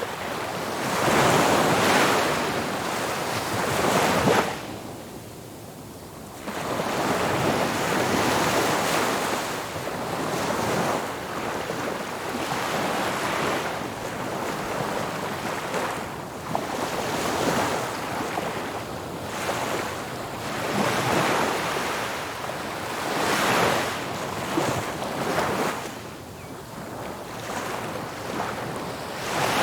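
Ocean waves breaking on a shore, each wave swelling into a hiss and then drawing back. The surges come every few seconds, with a short lull about five seconds in.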